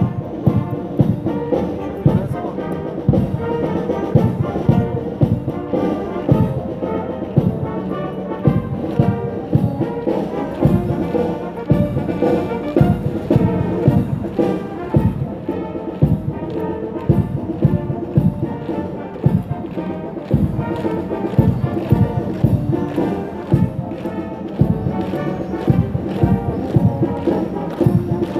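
Military brass band playing a march, with a steady drum beat under the brass.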